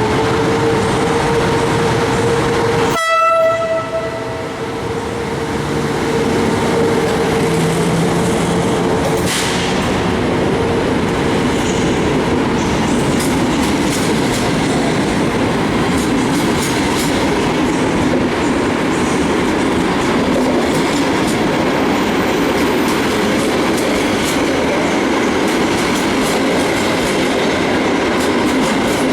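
Passenger train hauled by an EP09 electric locomotive running through the station, with continuous rolling noise and wheel clatter over rail joints. A steady tone sounds for the first several seconds, and a brief horn note comes about three seconds in.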